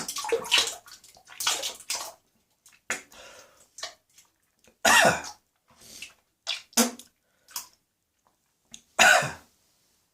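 A person coughing and gagging in harsh, separate bursts with pauses between them, choking after something went down the wrong way. The loudest fits come about five seconds in and near the end.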